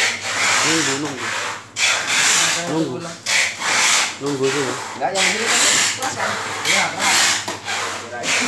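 Handling noise from a phone's microphone rubbing against cloth or a hand as it is carried: repeated scraping swishes, roughly one a second, with faint voices underneath.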